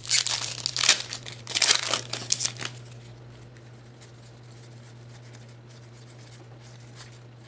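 Foil wrapper of a 2008 Upper Deck football card pack crinkling as it is torn open, in crackly bursts over the first two and a half seconds or so, then only a low steady hum.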